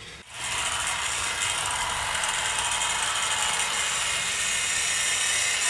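00 gauge model train running on the layout track, a steady mechanical whirring and rattling of its electric motor, gears and wheels that starts just after the opening instant and holds even.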